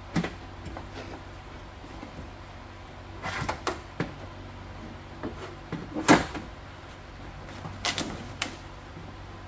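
Hands working inside a pickup's door shell: scattered short rustles, clicks and knocks as the clear plastic vapor barrier is pushed aside and parts are handled. The loudest comes about six seconds in, over a low steady hum.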